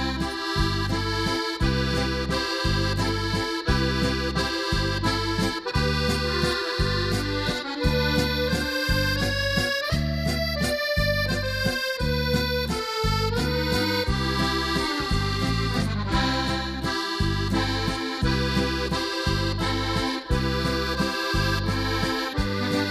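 Instrumental music with a steady, even bass beat under a sustained melody.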